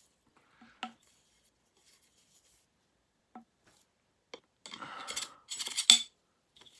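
Handling noise from a Dyson brush bar being worked on: a few light clicks, then about a second and a half of scraping and rubbing as a steel rod moves through the bar's end bearing and plastic end cap, ending in a sharp click.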